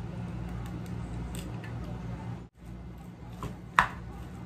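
A plastic spoon stirring raw meat and vegetable filling in a bowl, with a few light clicks and one sharper knock of the spoon against the bowl near the end, over a steady low hum.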